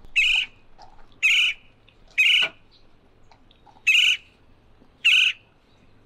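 Gila woodpecker calls played as a recording through a phone speaker: five short, identical calls about a second apart, with a longer pause midway.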